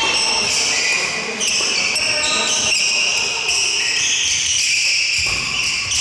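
Court shoes squeaking on a wooden sports-hall floor during badminton play: high-pitched squeals that change pitch and overlap almost without a break, with a few dull thuds of footsteps.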